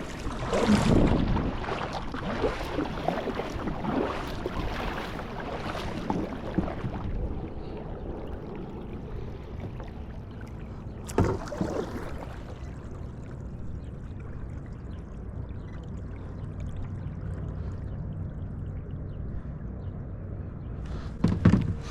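A kayak moving through water while trolling, with splashy water noise and repeated strokes for about the first seven seconds. It then settles to a quieter wash of water along the hull, with one sharp knock about eleven seconds in.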